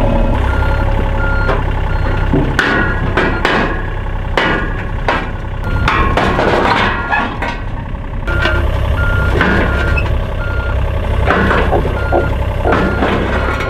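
John Deere 35G mini excavator's diesel engine running with its travel alarm beeping on and off, amid repeated clanks and bangs of the steel tracks, bucket and ramps on the trailer as the machine is unloaded.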